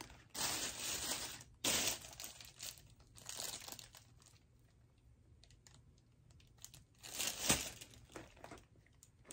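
Paper sheets and a clear plastic bag wrapper rustling and crinkling as they are handled. The crinkling comes in several short bursts over the first few seconds, then goes quieter, with the loudest crinkle about seven and a half seconds in.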